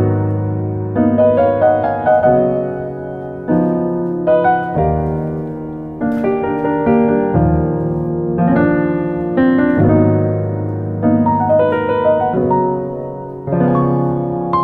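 Background piano music: struck notes and chords in an unhurried tune, each one fading before the next.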